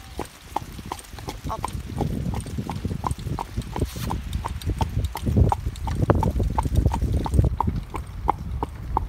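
Gypsy cob pony's hooves clip-clopping on a tarmac lane at a steady trot as it pulls a carriage, about three hoofbeats a second. A low rumble runs underneath and grows louder from about two seconds in.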